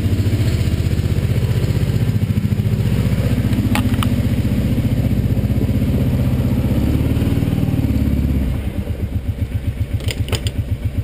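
ATV engine running steadily as the machine rolls along, then easing off to a lower idle about eight seconds in. A few short clattering clicks sound around four seconds and again near the end.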